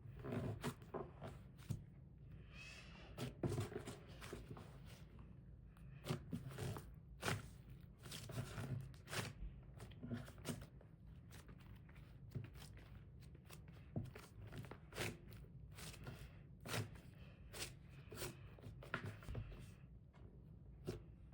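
Butter slime being poked and squished by hand: irregular soft clicks and small pops, one or two a second with no steady rhythm.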